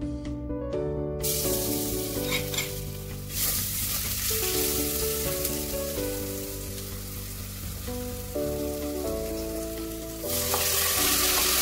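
Chopped garlic sizzling in hot oil in a stainless steel pot as it is stirred with a wooden spoon, over soft background music. The sizzle starts about a second in, grows stronger around three seconds, and gets louder near the end as canned tuna goes into the pot.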